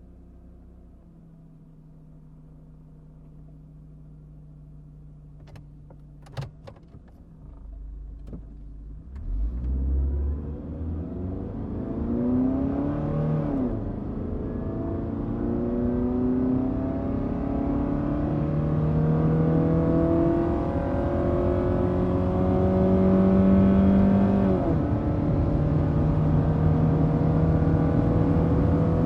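A car engine runs quietly at a steady low note, with a few sharp clicks about six seconds in, then accelerates hard from about nine seconds in. Its pitch climbs and drops suddenly twice as it shifts up through the gears, growing louder.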